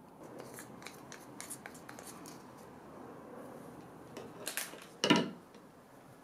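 A wooden stir stick scraping and clicking against plastic containers as thick white paint is scraped from a small jar and stirred in a clear plastic tub. The loudest sound is a single sharp plastic knock about five seconds in.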